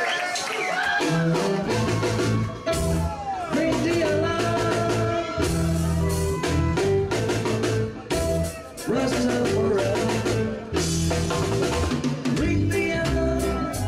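A live reggae band playing, with the drum kit hitting hard and heavy bass notes that come in about a second in.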